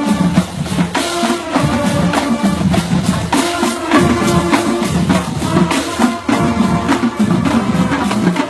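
Marching band playing a stand tune: pitched band parts over a steady beat of snare and bass drums.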